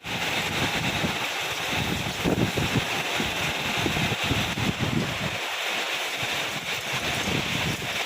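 Heavy rain falling steadily, a dense hiss, with wind gusting against the microphone in uneven low rumbles.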